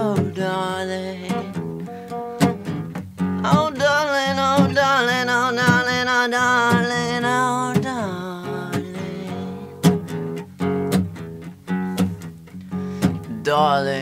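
Band rock music with guitar and frequent sharp percussive hits. From about four to eight seconds in, a long, wavering pitched lead line rises above the band.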